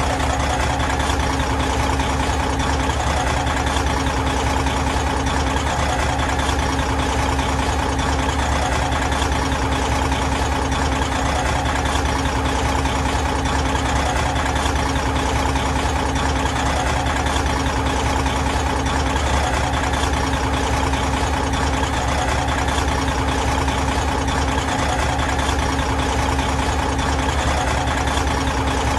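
Big truck diesel engine idling steadily.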